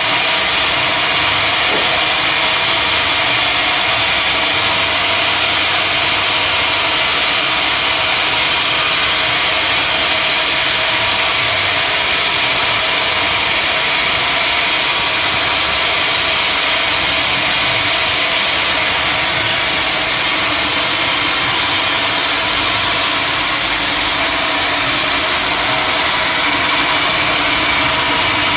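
Sawmill machinery running steadily: a loud, even mechanical drone with no pauses or changes.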